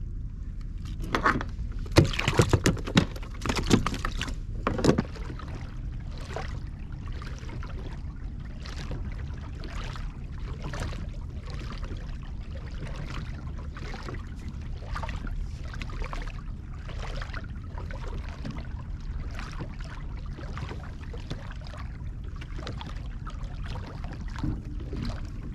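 Fishing kayak under way, with a steady low rush of water and wind and a soft stroke-like swish repeating about every two-thirds of a second. In the first few seconds there are louder sharp knocks and clatter of gear being handled in the kayak.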